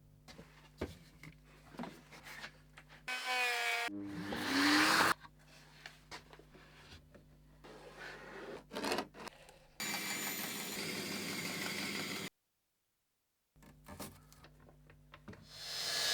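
Woodworking shop sounds in quick succession over a low steady hum: scattered taps and knocks, a power tool whirring briefly with a shifting pitch, about two seconds of steady noise from tool work on wood that cuts off abruptly, and near the end a power tool spinning up.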